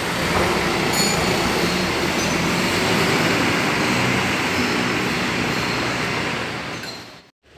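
A Hino coach's diesel engine running, a loud, steady rumble mixed with the wider noise of the bus. It fades away near the end.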